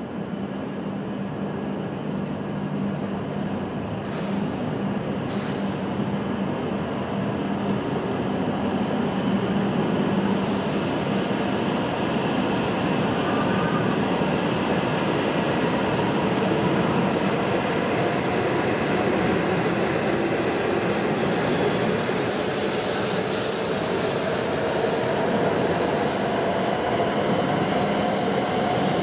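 Double-deck Stadler KISS electric multiple unit (Aeroexpress ESh2) approaching and running past. Its rolling noise builds over the first several seconds and then holds steady as the cars go by, with a faint whine rising in pitch in the second half.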